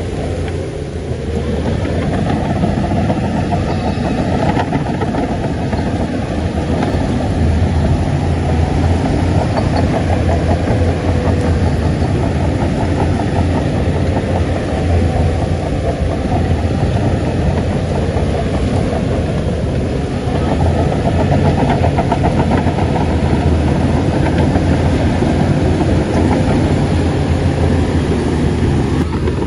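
Heavy diesel engine of an earthmoving machine running hard and steady, growing louder over the first couple of seconds.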